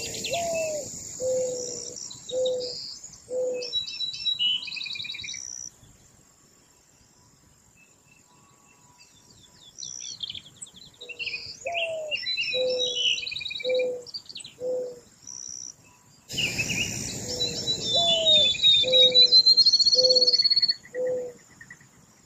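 Mourning dove singing its cooing song, a rising coo followed by four shorter, lower coos. The phrase comes three times, with a quiet gap of a few seconds between the first two. Small songbirds chirp and trill over the cooing.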